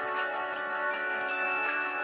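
A Nokia C6-00 ringtone playing: a short tune of held notes layered over one another, with higher notes coming in partway through.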